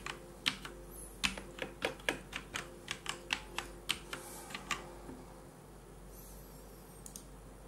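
Keys of a Tesoro Lobera Spectrum mechanical keyboard with Kailh Black linear switches being pressed, about twenty irregular clacks at roughly three to four a second. They stop about five seconds in.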